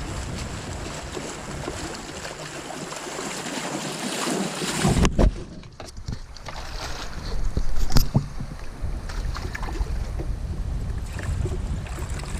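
Wind rushing on the microphone over river water, cutting off suddenly about five seconds in with a thump, then scattered clicks and a sharp knock near eight seconds as things are handled in and around a kayak.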